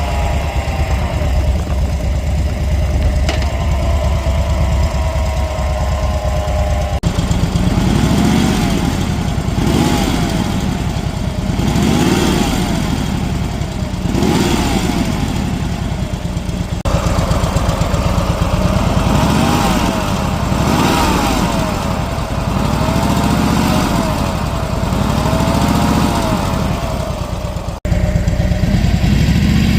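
2010 Harley-Davidson Dyna Street Bob Twin Cam V-twin running. At first it idles. From about seven seconds in, the throttle is blipped roughly every two seconds, and a whine rises and falls with the revs. The owner puts this whining and rattling down to the primary drive.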